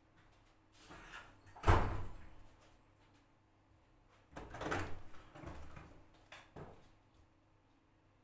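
LG front-loading washing machine mid-wash, its drum tumbling the load. One sharp thud comes near two seconds in, then a longer spell of thumping and swishing and a last short knock in the second half, over a faint steady motor hum.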